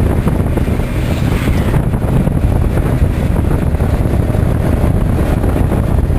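Wind buffeting the microphone of a moving scooter: a steady, loud low rumble of wind noise.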